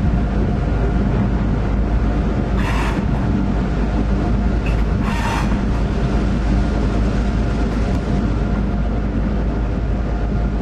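EMD GP9R diesel locomotive running steadily under way, its engine a constant low drone heard from inside the cab. Two short hisses cut in, a couple of seconds apart.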